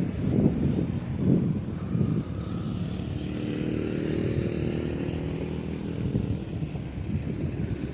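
Wind buffeting the microphone in gusts, then a motor vehicle passing close by: its engine hum and tyre whoosh swell up a couple of seconds in and fade away near the end.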